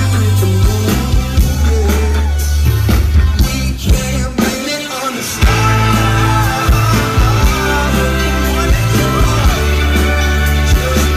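Live pop-rock band playing loud, with electric guitar, keyboard, bass and drums under a sung melody. About halfway through, the bass and drums drop out for a beat before the full band crashes back in.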